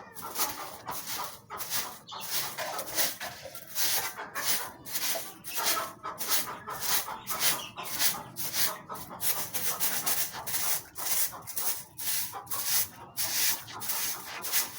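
Rhythmic scraping strokes, about two to three a second, like a surface being scraped or scrubbed.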